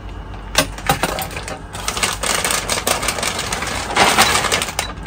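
A speargun being handled: an irregular run of clicks, knocks and rattles, with a louder stretch of clatter about four seconds in.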